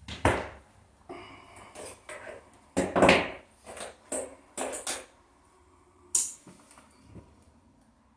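Metal hand tools clattering: pliers picked up and set down on a wooden floor and handled from a tool belt pouch, a run of irregular clanks and knocks, loudest about three seconds in.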